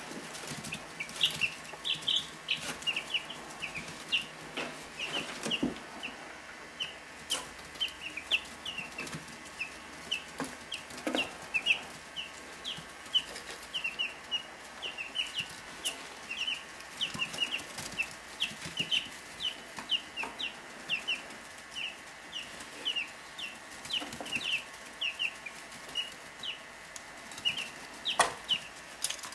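Three-week-old chicks peeping continuously: a rapid stream of short, high peeps, several a second, over a faint steady hum, with a few scattered clicks.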